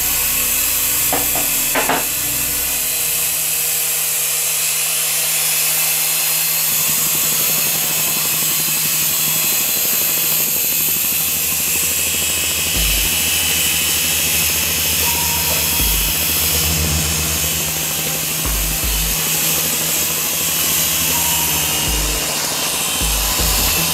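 Small coaxial radio-controlled toy helicopter's electric motors and rotors whirring steadily while it flies close by.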